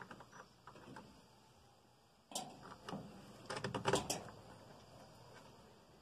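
Scattered small clicks and scrapes of a screw being fitted by hand into the plastic housing of a washing-machine drain pump, with one click a little after two seconds in and a quick run of clicks a second or so later.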